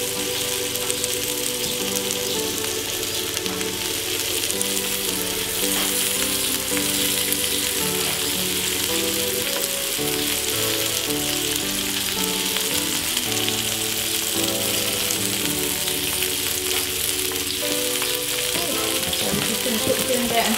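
Prawn skewers sizzling steadily on a portable gas barbecue hotplate lined with baking paper. Instrumental background music with a changing melody plays over the sizzle.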